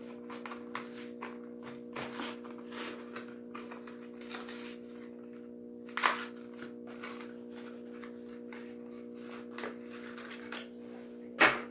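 Plastic blister packaging of a Hot Wheels diecast truck being opened by hand: scattered crinkles and clicks, with a sharper snap about six seconds in and another near the end, over a steady hum.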